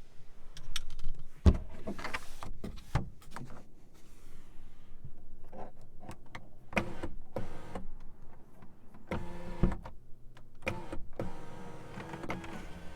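Clicks and knocks of a car's fittings being handled, with a small electric motor whirring in short spells, the loudest knocks about a second and a half in and near the ten-second mark.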